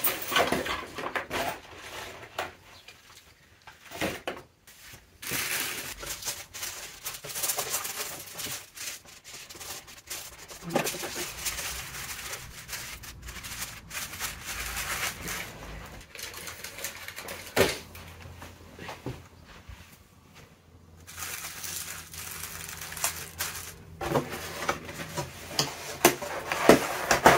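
Tissue paper and a cardboard mailer box being handled, folded and closed: irregular rustling and crinkling with a few sharp knocks of cardboard.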